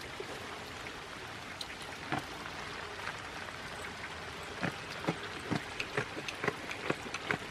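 Steady hiss of summer rain with sharp drips of water landing close by, a few at first and about two a second in the second half.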